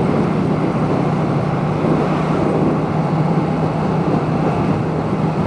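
Yamaha MT-07's parallel-twin engine running at steady revs through an aftermarket Akrapovic titanium exhaust, under a steady rush of wind and road noise. It is heard through a microphone inside a full-face helmet.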